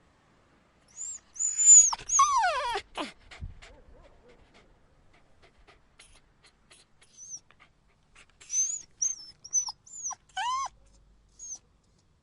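Dog yelping and whimpering: thin, very high squeals, then a long cry that drops steeply in pitch about two seconds in. After a pause comes a quick run of short high yelps and one rising-then-falling yelp near the end.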